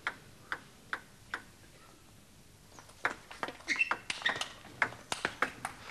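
A table tennis ball bouncing four times at an even pace, then a fast rally from about three seconds in: the ball clicking rapidly and irregularly off the bats and the table.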